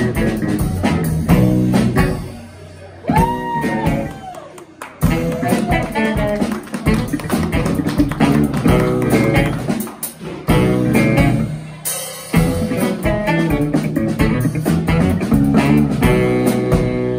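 Live jazz trio of saxophone, electric bass guitar and drum kit playing; the band thins out and drops in level briefly around two to five seconds in, with a held saxophone note, before coming back in full.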